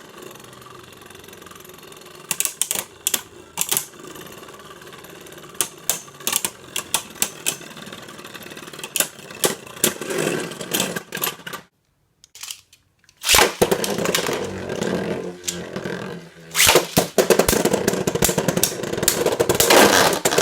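Beyblade Burst spinning tops whirring and clashing in a plastic stadium, with rapid sharp clicks as they hit each other and the stadium wall. The sound stops briefly about twelve seconds in, then starts again louder with denser clashing.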